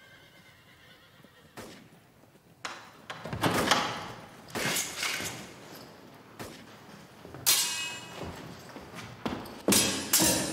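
Scuffle of a close-quarters sabre fight: a series of sharp hits and thuds, loudest about three to four seconds in and again near the end, with a longer high-pitched cry about seven and a half seconds in.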